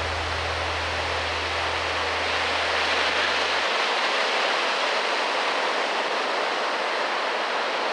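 Surf breaking on a sandy beach: a steady wash of noise that swells a little near the middle. A low held music tone stops a little before halfway through.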